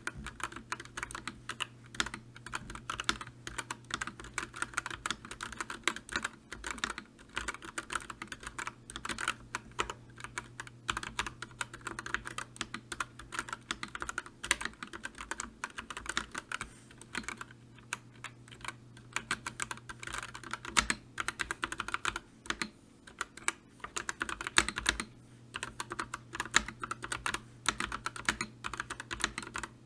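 Computer keyboard typing: a fast, continuous, irregular run of keystroke clicks, with a faint steady low hum underneath.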